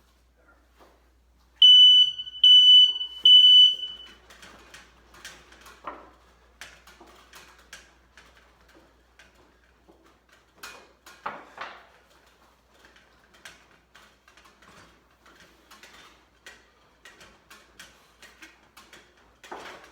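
Smoke alarm horn going off at smoke from a burning candle: three loud, high-pitched beeps in a row starting just under two seconds in. After them come scattered light clicks and knocks of handling.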